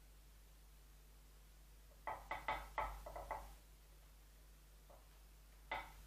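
Faint sharp clicks from hands working wire and branches on a small bonsai tree: a quick run of about six a couple of seconds in, then one more near the end, over a low steady hum.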